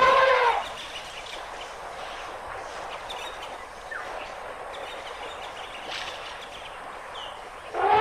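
An African elephant trumpets briefly at the very start, followed by a steady outdoor hiss with a few faint bird chirps; another elephant trumpet begins just before the end.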